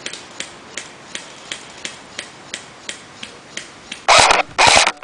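Regular sharp clicks about three times a second, then two loud bursts of rapid full-auto airsoft gunfire near the end.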